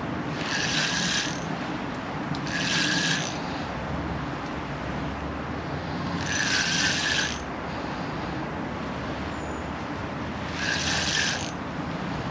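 Fixed-spool reel on a feeder rod being wound in four short bursts of about a second each, its gears rattling as line is retrieved.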